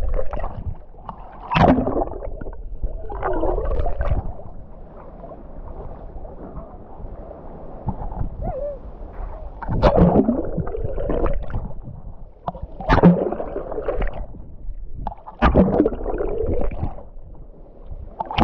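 Sea water sloshing and gurgling close to the microphone, in surges every two to three seconds over a low rumble.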